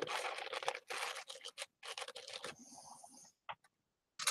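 Dry paper roses rustling and crackling as a hand presses and handles them, in several short spells with small clicks.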